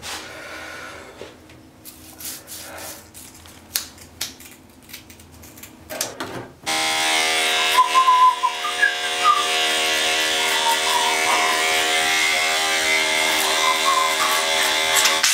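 Electric hair clipper starting with a sudden buzz about six and a half seconds in and then running steadily and loudly as it shaves stubble. Soft scattered clicks and scrapes come before it.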